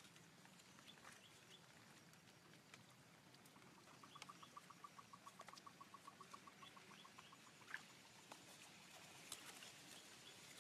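Near silence: faint drips and small ticks of water as a fishing net is pulled up by hand over a wooden boat's side. In the middle, a small animal gives a faint rapid pulsing call for a few seconds.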